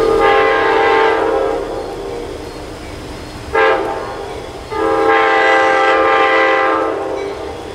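Multi-chime locomotive air horn sounding a long blast, a short blast, then another long blast, each a chord of several tones, over a steady low rumble. The long–short–long ending is the grade-crossing horn signal.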